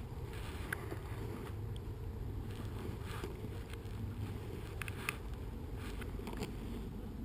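Wind buffeting the camera microphone: a steady low rumble, with a few faint clicks scattered through it.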